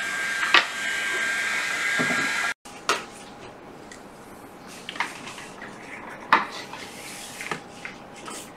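A steady electric whir with a high tone, broken once by a sharp click, cuts off suddenly about two and a half seconds in. After that, scattered light clicks and knocks as a small handheld UV curing lamp is handled and set down over a laptop display's hinge area.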